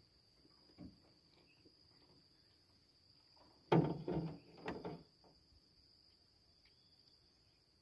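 Steady high insect trilling, like crickets, with a short cluster of knocking and rattling about four seconds in.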